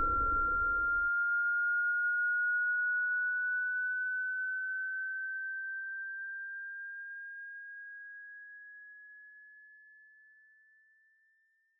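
A single pure electronic tone, rising slowly in pitch and fading out over about ten seconds. A low rumble under it stops suddenly about a second in.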